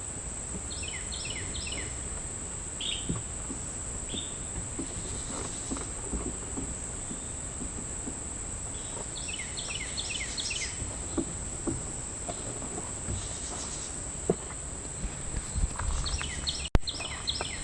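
Steady high-pitched drone of insects, with three bursts of a bird's quick, falling chirps, near the start, about halfway and near the end. Faint scattered knocks and handling noises sit underneath.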